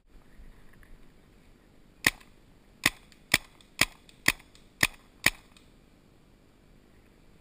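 Paintball marker firing seven sharp shots in quick succession, about half a second apart, starting about two seconds in.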